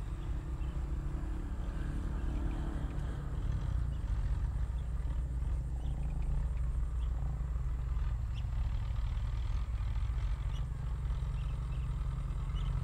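A steady low rumble throughout, with faint scattered ticks above it.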